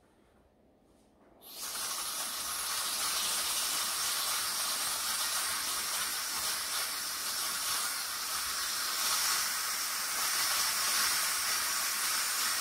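Philips electric pressure cooker venting steam through its pressure-release valve: a steady, loud hiss that starts suddenly about a second and a half in. The cooker is letting off its built-up pressure after cooking, which must be fully released before the lid can be opened.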